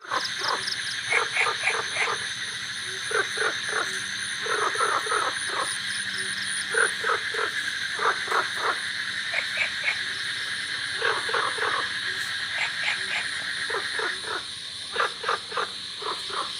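Chorus of Indian bullfrogs croaking in short runs of three to five quick croaks, a run every second or two, over the steady high-pitched trilling of crickets.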